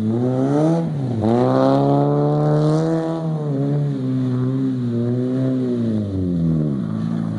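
Small sports car's engine revving hard as the car drifts in circles on grass: the revs climb steeply about a second in, hold high for a couple of seconds, then ease off and drop near the end.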